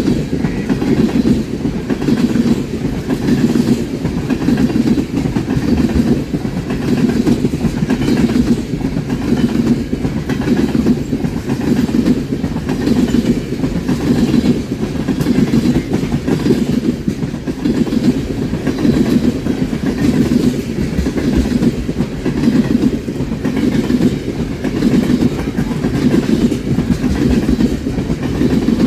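Railroad cars rolling steadily past with a continuous rumble, their wheels clicking over the rail joints in a regular clickety-clack about once a second.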